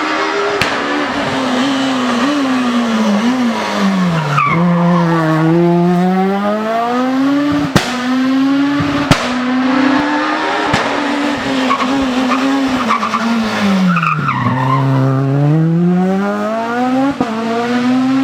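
Rally car engine working hard: the revs drop sharply about four seconds in and again near fourteen seconds, each time climbing back up under acceleration. A couple of sharp cracks come in between.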